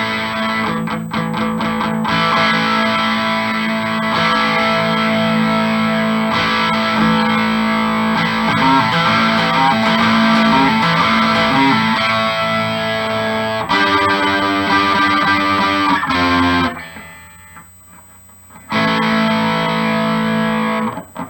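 Amplified electric guitar, a G&L Legacy Tribute on its bridge Seymour Duncan Little '59 mini humbucker together with the middle single coil, playing ringing chords. The playing stops about 17 seconds in and one more chord rings from about 19 seconds. The guitar is out of tune.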